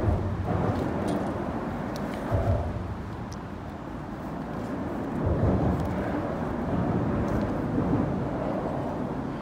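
Road traffic crossing the bridge deck overhead: a low rumble that swells and fades as vehicles pass, with a sharper thump near the start and another about two and a half seconds in.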